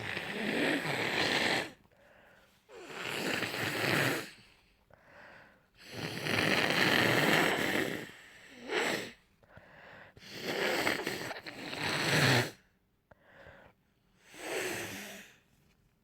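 A person with a head cold blowing a congested, snotty nose into a tissue: about seven blows of uneven length, the longest lasting two to three seconds, with short breaks between.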